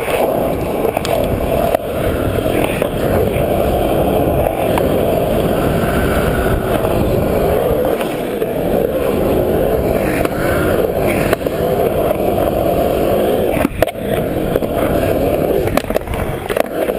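Skateboard wheels rolling over concrete in a continuous loud rumble as the board carves through the park's bowls and transitions, with a sharp knock late on.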